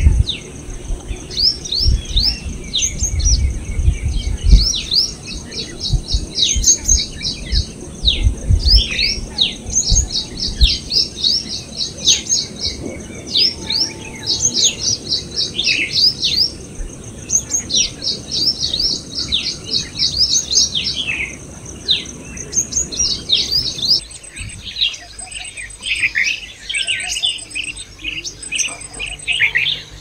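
Purple sunbird singing: short phrases of quick falling notes that run into a fast, high trill, repeated every two to three seconds, with some low bumps during the first ten seconds or so. About two-thirds of the way through, the sound cuts to a red-vented bulbul's more varied, lower chirping notes.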